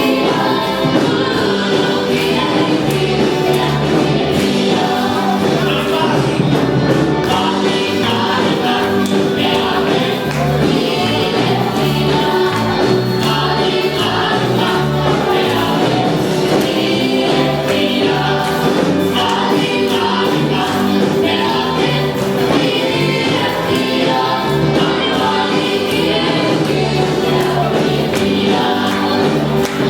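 A group singing gospel music in harmony over a band accompaniment.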